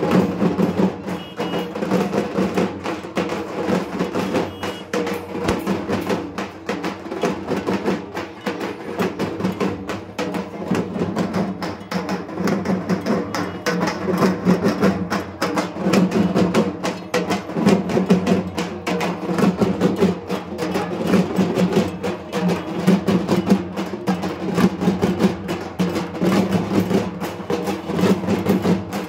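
Several dhaks, the large Bengali barrel drums, beaten with thin sticks in a fast, continuous rhythm of dense strokes.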